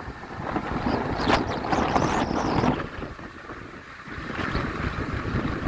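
Wind buffeting the microphone in uneven gusts, loudest in the first half and easing off about three seconds in.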